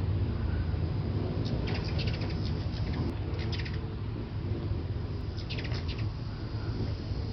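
Hummingbirds' wings humming in a steady low drone, broken three times by short bursts of rapid chittering calls.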